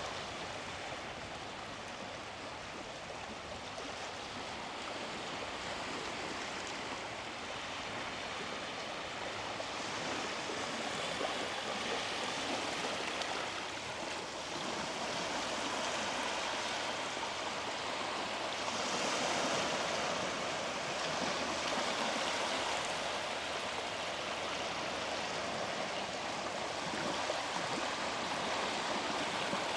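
Small sea waves breaking and washing up the beach, a steady rush of surf that swells louder every few seconds.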